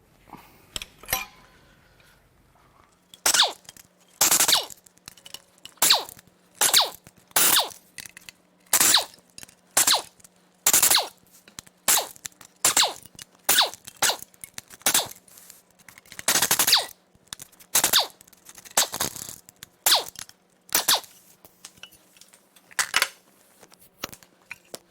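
A power tool, most likely a cordless impact wrench, in about twenty short sharp bursts, roughly one a second, as fasteners are run off the engine.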